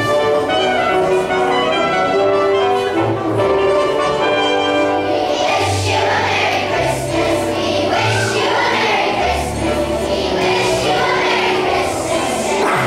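Recorded instrumental music plays, and about five seconds in a large group of children's voices comes in singing along with it.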